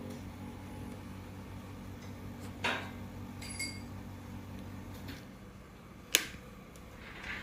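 A low steady hum that stops about five seconds in, with a few sharp clicks; the loudest click comes about six seconds in.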